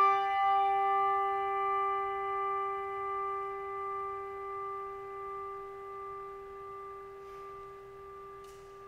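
A brass handbell, struck once, ringing on and slowly dying away with a gentle wavering pulse in its tone. It is tolled in remembrance of the dead.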